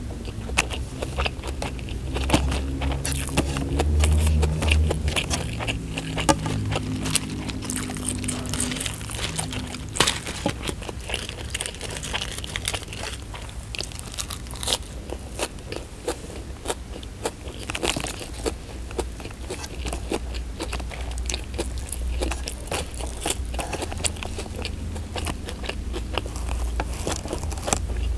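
Close-miked eating sounds: chewing and biting of rice, omelette and raw leafy greens eaten by hand, with many short crunches and mouth clicks.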